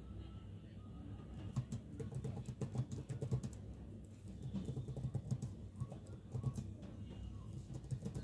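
Computer keyboard typing: an irregular run of quick key clicks, several a second, over a low background din.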